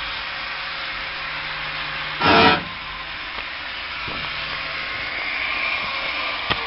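Cabin noise inside a 1977 Opel Kadett C on the move: steady engine and road noise, a short loud burst a little over two seconds in, and a tone that falls steadily in pitch near the end.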